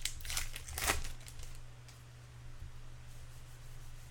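Crinkling and rustling of a baseball card pack wrapper and cards being handled. There is a quick cluster of crinkles in the first second, then quieter rustling over a steady low hum.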